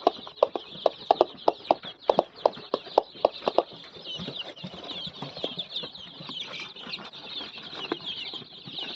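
A large brood of young local chicken chicks peeping, many high cheeps overlapping without a break. For the first three and a half seconds a regular series of sharp knocks, about three a second, sounds louder than the chicks.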